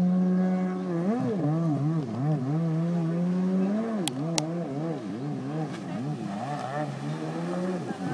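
Kawasaki 750 SX jet ski's two-stroke engine revving, its pitch steady at first, then rising and falling over and over as the throttle is worked. Two sharp clicks come about four seconds in.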